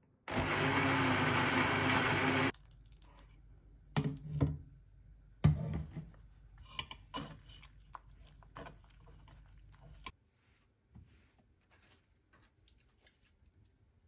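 Countertop blender running for about two seconds, blending kale, then cutting off sharply. A few loud knocks follow, then small clicks and soft handling sounds as the blended kale is pressed through a metal sieve.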